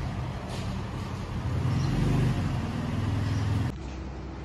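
Street traffic: motor vehicle engines running, their low hum swelling twice, then dropping away suddenly near the end.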